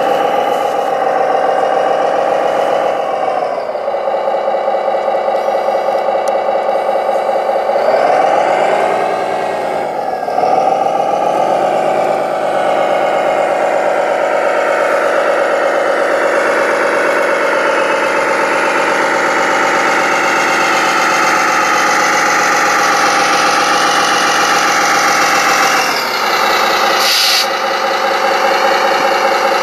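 Engine sound of a radio-controlled scale model tractor running steadily, with one dip and rise in revs about 8 to 10 seconds in.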